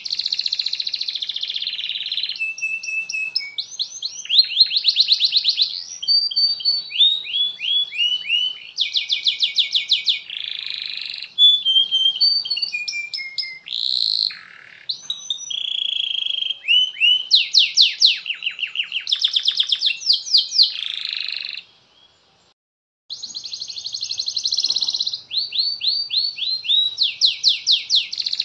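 Domestic canary singing a long song of rapid trills and rolling runs of notes, one phrase after another, with a short break about three quarters of the way through.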